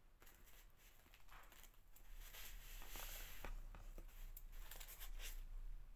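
Faint soft handling noises from hands working ribbon flowers and small craft pieces, with a few light clicks and taps around the middle and near the end.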